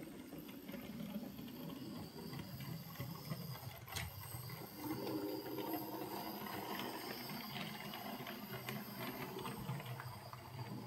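00 gauge model Great Western tank locomotive and coaches running along the track: a steady low motor hum with light, irregular clicking of wheels on the rails, and one sharper click about four seconds in.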